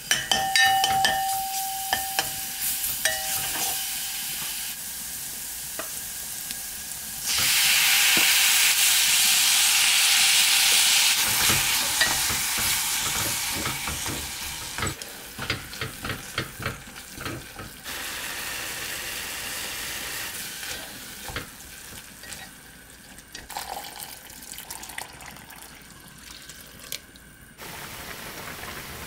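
Minced garlic, then kimchi, sizzling in hot oil in a pot while being stirred with a spoon and chopsticks, with clicks of the utensils against the pot. The sizzle turns loud about seven seconds in and eases off over the next few seconds. Near the end, the stew broth bubbles at the boil.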